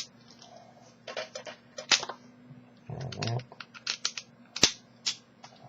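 Irregular light metallic clicks and taps from a dimple-key bike lock and small steel lock tools being handled, with one sharper click a bit over halfway.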